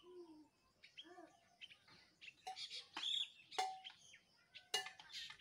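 Faint birds chirping in the background: scattered short calls, several of them quick high chirps falling in pitch, with brief gaps between.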